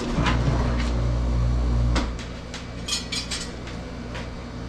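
A low machine hum that drops away about two seconds in, with scattered clinks and knocks and a brief rattle about three seconds in.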